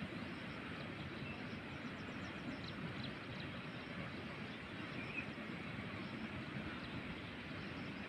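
Steady outdoor background noise, a low, even rumble and hiss, with a few faint, brief high chirps a few seconds in.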